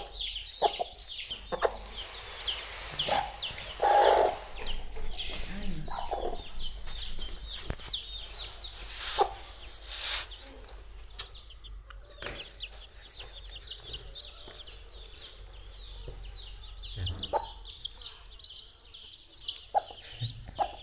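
Newly hatched chicks peeping in a dense, continuous chorus of short high chirps, with their black Aseel hen clucking low now and then.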